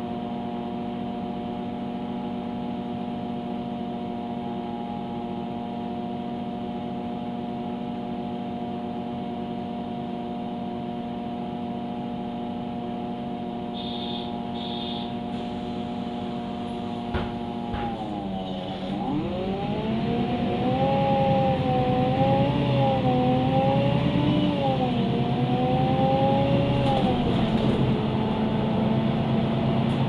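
MAN Lion's City A21 NL273 CNG city bus heard from inside: the engine idles with a steady hum, two short high beeps come about halfway through, then the bus pulls away and the engine note dips, climbs and wavers up and down as it gets louder.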